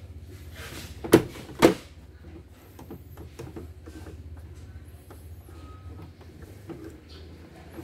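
Two sharp knocks about half a second apart, then light clicks and rustles, as the CNY portable embroidery machine and the thick cap in its hoop are handled at the needle, over a steady low hum.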